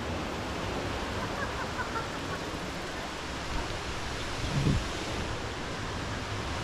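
Steady rushing of a stream running beside the lane, with a short low thump about four and a half seconds in.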